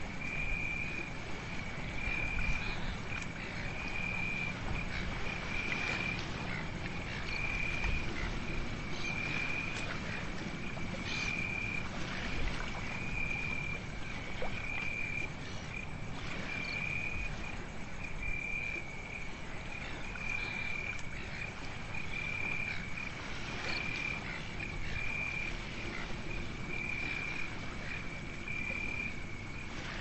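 A cricket singing at night: one steady high trill pulsing about once a second, each pulse about half a second long, over a low background rumble with scattered faint clicks.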